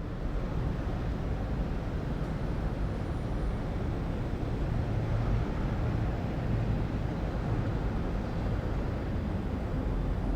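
City ambience: a steady low rumble of distant traffic with no distinct events.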